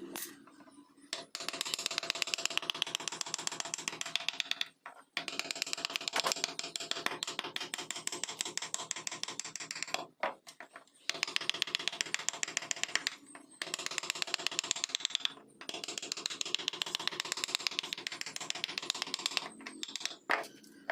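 Wood-carving tool working a block of wood: rapid, regular ticking and scraping in runs of a few seconds, with short pauses between runs.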